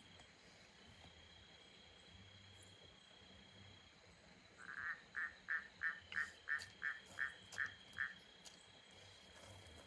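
A frog calling nearby at night: a run of about ten quick croaks over roughly three seconds, starting about halfway through. A faint steady insect trill runs underneath.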